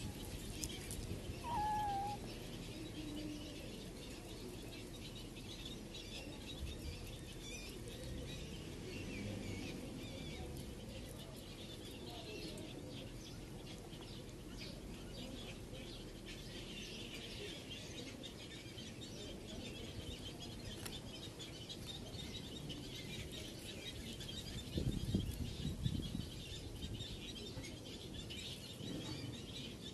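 Birds chirping in the background, a steady chatter of small calls, with one short wavering call about two seconds in. Late on, a brief low rumble rises over it.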